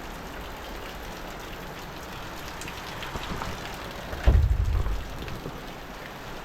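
Steady heavy rain falling on surfaces, with a short low rumble a little over four seconds in.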